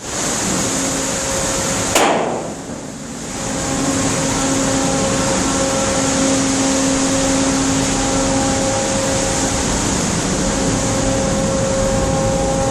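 Steady machinery hum and rushing noise with faint steady tones, broken by a single sharp knock about two seconds in.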